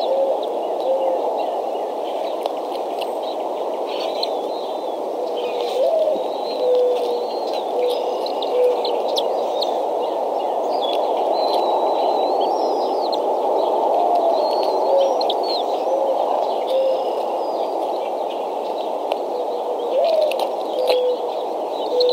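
A mourning dove sings its cooing song three times, each a rising first coo followed by three or four lower, even coos. Small songbirds chirp higher up throughout, over a steady rushing background.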